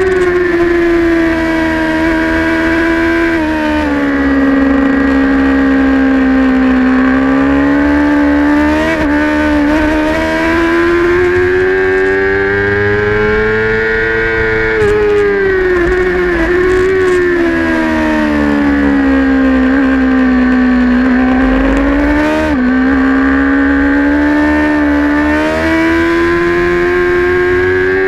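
Race-prepped sport motorcycle's engine at high revs on track, heard from on board. The pitch rises and falls as the rider accelerates and brakes through the corners, with short drops in pitch near the start and about three-quarters of the way through, under wind rumble on the microphone.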